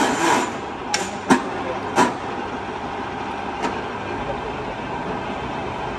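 TOS W100A horizontal boring machine running with a steady mechanical hum, with sharp clunks in the first two seconds and one more a little later as the headstock control levers are shifted.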